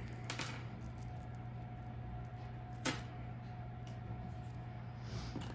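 A few light clicks of metal earrings and beads being handled and set down, the sharpest about three seconds in, over a steady low hum.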